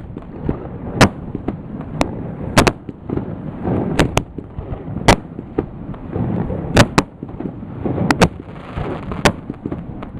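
Fireworks display going off: about a dozen sharp bangs at irregular intervals over a continuous rumble and crackle, echoing off the surrounding buildings.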